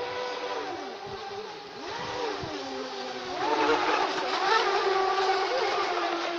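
Brushless electric motors of RC speedboats (Feilun FT011) whining, their pitch rising and falling as the throttle changes, over the hiss of the hulls on water. The whine grows louder from about three and a half seconds in.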